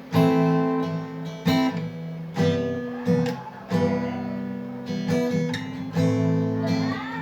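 Acoustic guitar strumming chords, a chord struck about every second and left to ring between strokes.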